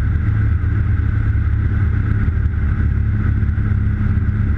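Turbocharged Subaru EA81 engine driving a three-blade Warp Drive propeller on a Dragonfly Mk II light aircraft, a steady drone heard inside the cockpit.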